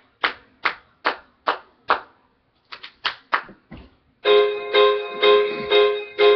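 A run of sharp, evenly spaced clicks, about two and a half a second, then a few uneven clicks. About four seconds in, a piano-like keyboard starts the song's intro, a chord struck about twice a second.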